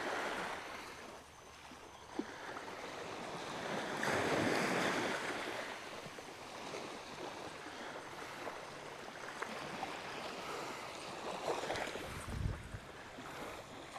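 Small waves washing up and draining back on a sand beach at the water's edge, with a louder swash about four seconds in. Some wind on the microphone.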